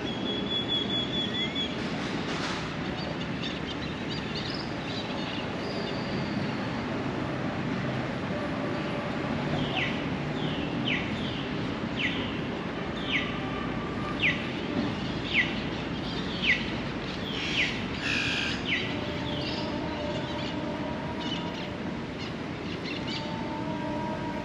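Steady city street noise, with a regular run of about ten short falling chirps, roughly one a second, in the middle.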